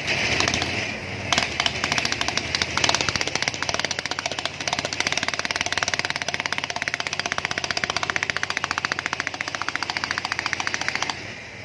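Stanley hydraulic breaker hammering on asphalt: a fast stream of blows, uneven for the first few seconds, then steady, stopping near the end.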